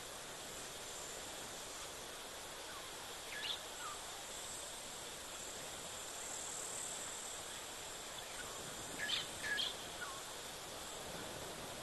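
Insects chirring steadily at a high pitch, with short sharp calls from a small animal about three and a half seconds in and twice more, close together, near nine seconds.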